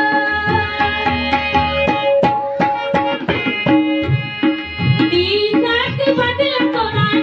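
Live Indian folk music: a hand drum beats a quick rhythm under held, steady melodic notes, and a woman's singing voice joins the accompaniment.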